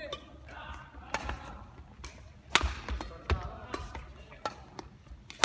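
Badminton rally: rackets hitting a shuttlecock, a string of sharp hits roughly a second apart. The two loudest come about two and a half and three seconds in.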